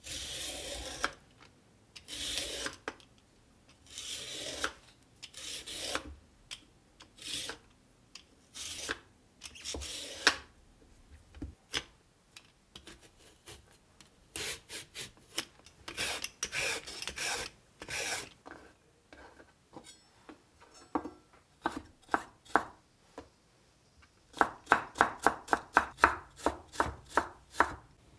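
Kitchen knife cutting food on a wooden cutting board. Slower, longer strokes a second or two apart give way near the end to a quick, even run of chops, about four a second.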